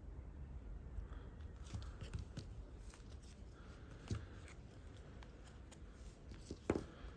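Light clicks and short scrapes of a small tool working against a smartphone's frame and parts, as the glued battery is pried loose, with one sharper click near the end.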